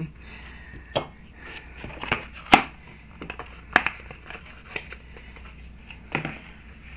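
A few light clicks and taps of small hardware and a plastic box being handled on a tabletop, about five in all, the loudest about two and a half seconds in.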